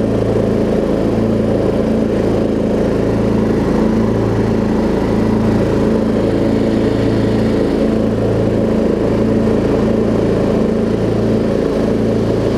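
Craftsman LT1750 riding mower's 17.5 hp Kohler Pro engine running steadily, its note wavering slowly and evenly about once a second, with the cutting deck not yet engaged.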